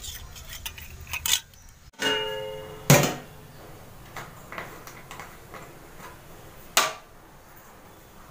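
Steel dishes clinking as a plate and tumbler are handled. Then a metal kitchen pot rings briefly when it is knocked, followed by two sharp knocks, the first of them the loudest.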